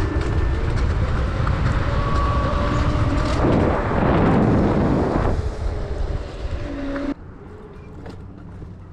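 Kaabo Wolf King GT electric scooter riding: heavy wind rumble on the microphone and a rush of road noise, with a faint motor whine that steps in pitch. The noise swells loudest around the middle, then drops sharply about seven seconds in.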